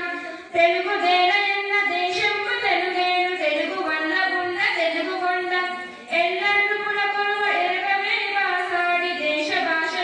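A schoolgirl singing solo into a microphone, a melody of long held notes with no instruments, breaking off briefly for breath about half a second in and again around six seconds.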